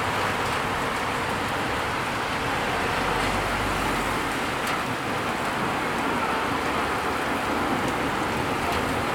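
Steady downpour of rain falling on a wet street: an even, unbroken hiss.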